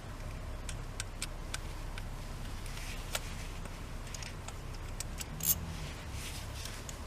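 Scattered light clicks and taps of metal parts and hand tools being handled while a steering-wheel quick release is fitted, with one sharper click about five seconds in, over a low steady hum.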